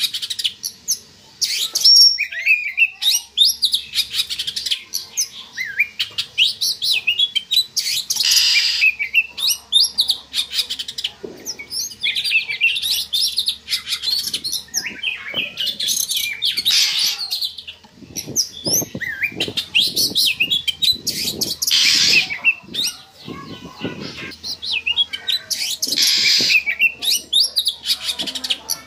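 Oriental magpie-robin (kacer) singing in breeding condition: a rapid, varied stream of chirps, slurred whistles and harsh notes with hardly a pause. A run of soft low thumps comes in the second half.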